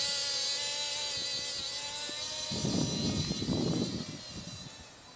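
Blade Nano QX micro quadcopter's tiny electric motors and propellers whining, a high-pitched hum that drifts slightly in pitch and fades about four seconds in. Gusts of wind rumble on the microphone midway.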